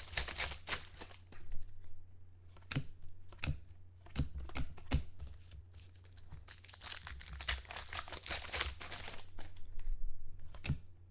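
Foil wrapper of a Panini Contenders football card pack being torn open and crinkled. There are two long stretches of crinkling, at the start and again in the middle, with short taps and clicks of cards and packs being handled between them.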